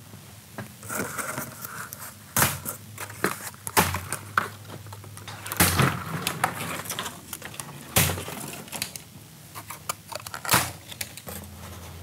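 Plastic packing banding being cut and pulled off a boxed glass door panel: a series of sharp snips and snaps, with the cardboard edge guards and wooden packing slats rustling and knocking as they are handled.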